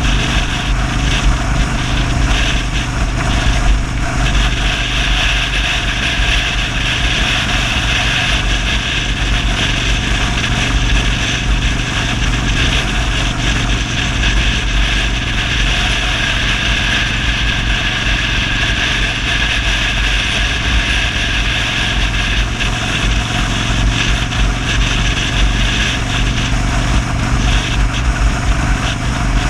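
Motorcycle engine running steadily at cruising speed, mixed with heavy rushing wind noise on the camera's microphone.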